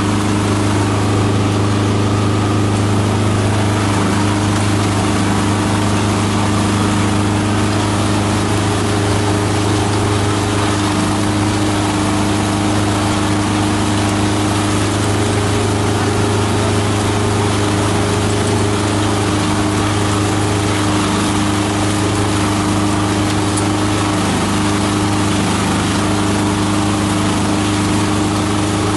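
Esteban multi-purpose chopper-shredder running steadily under load, shredding grass and straw, with a constant low hum and a few steady tones over it.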